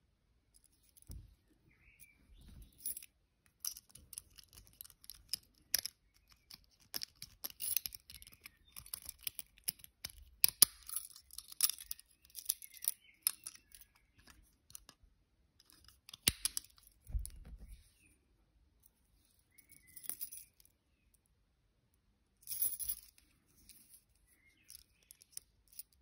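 Steel warded picks on a ring clinking against each other and scraping in the keyway of an Abus 16/45 warded padlock: an irregular run of small metallic clicks and scrapes, thickest in the first half, then a few scattered bursts.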